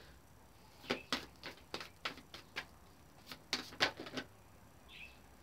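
A deck of tarot cards being shuffled by hand: a quick, uneven run of about a dozen slaps and flicks of the cards, stopping about four seconds in.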